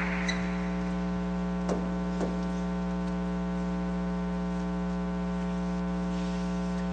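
Steady electrical mains hum with many even overtones, carried on the broadcast audio, and a couple of faint ticks about two seconds in.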